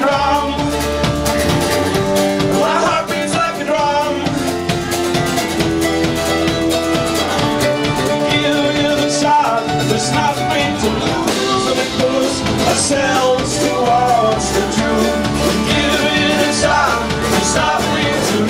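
Live folk-rock band playing, with acoustic guitar, banjo, electric and bass guitars and drums.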